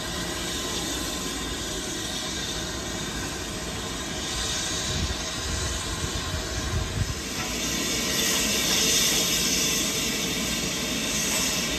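BR Standard Class 7 Pacific No. 70000 Britannia standing and easing slowly forward, with a steady hiss of escaping steam. The hiss grows louder from about eight seconds in, and a few low thumps come around the middle.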